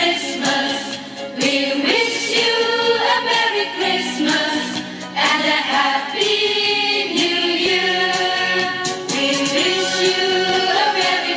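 Choir singing a Christmas song with musical accompaniment.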